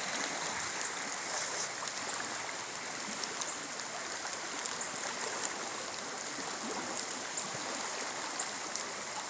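Flash-flooded creek rushing steadily, swollen into a fast-running stream by heavy rain, with a few faint ticks over it.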